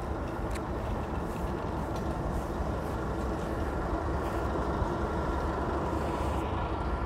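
Steady low rumble of street traffic, with a heavy vehicle's engine running.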